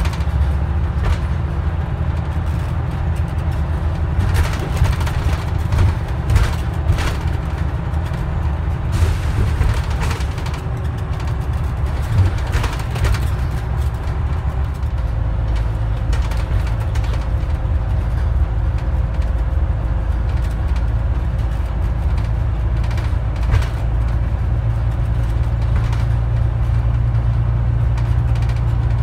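Scania N94UD double-decker bus heard from its upper deck on the move: the five-cylinder diesel engine runs with a low drone, while the body and fittings rattle and knock. The engine sound changes and settles into a steadier drone about halfway through.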